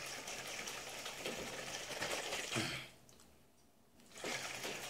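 Salt water sloshing in a capped bottle being shaken hard to dissolve the sea salt, a rapid steady churning that stops for about a second after the middle and then starts again.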